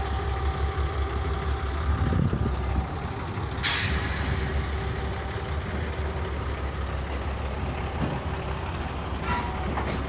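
Large vehicle engine running with a steady low rumble, and a short sharp hiss of released air about three and a half seconds in.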